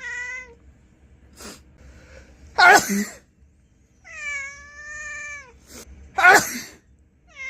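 A person sneezes loudly twice, about three and a half seconds apart. A cat meows in between: a short meow at the start, a long drawn-out meow between the sneezes, and another beginning right at the end, as if complaining about the sneezing.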